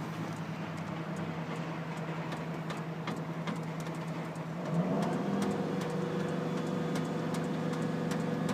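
An aerial ladder truck's engine and hydraulics run steadily while the ladder lowers. About five seconds in, the engine speeds up with a short rising pitch, and a steady higher whine joins it. Faint scattered clicks sound throughout.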